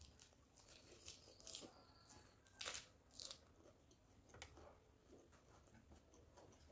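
Quiet close-up chewing of crisp fresh lettuce leaf: scattered crunches and crackles, with two louder crunches near the middle.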